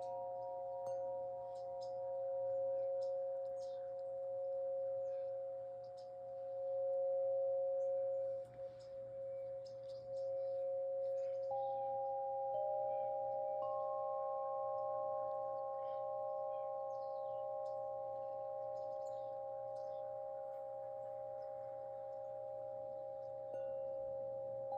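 Slow meditation music of long, sustained bell-like tones, like singing bowls, several notes held together. New notes come in about halfway through.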